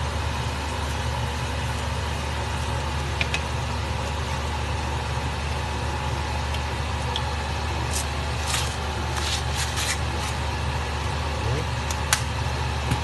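A steady low mechanical hum, with a few sharp clinks of a utensil against the cooking pan: a cluster about eight to ten seconds in and a single sharp one near the end.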